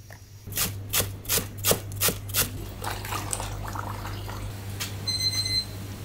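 Kitchen work: a quick run of about six sharp knocks, then a short electronic beep near the end, over a steady low hum.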